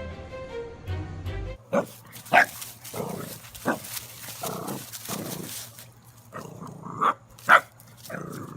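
Brief music, then a dog barking in a string of short, separate barks spaced irregularly.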